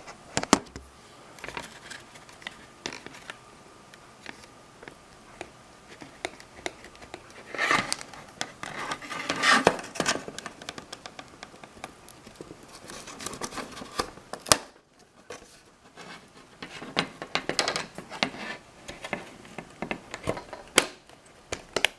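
Scattered plastic clicks and scratchy scraping as an LCD panel is pried and lifted out of a clock's plastic case, pulling loose from adhesive foam pads.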